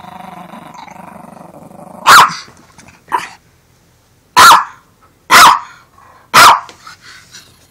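Small Yorkshire terrier growling low for about two seconds, then barking five times, sharply and about a second apart, the second bark shorter and softer. The dog is guarding an empty dog food bag.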